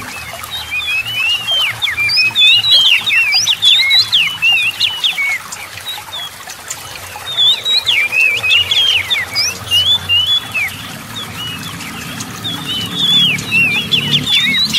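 Oriental magpie-robin (kacer) singing: fast runs of varied whistled notes sliding up and down, in three spells with short pauses between.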